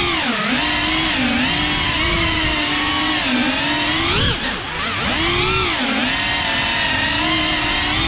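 GEPRC CineLog 35 cinewhoop's brushless motors and ducted propellers whining in flight, the pitch swelling and dipping constantly as the throttle is worked, with brief sharp drops where the throttle is chopped.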